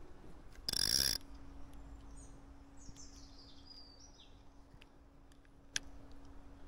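Small birds calling a few short high chirps, after a brief loud rush of noise about a second in. A faint steady low hum runs underneath, and there is one sharp click near the end.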